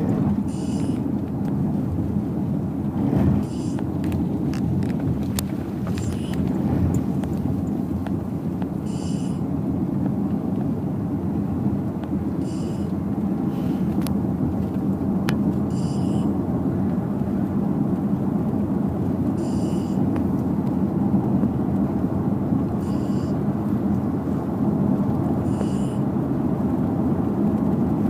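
Steady rumble of a car driving at speed, heard from inside the cabin, with a sleeping pet's hissy snore rising over it about every three seconds.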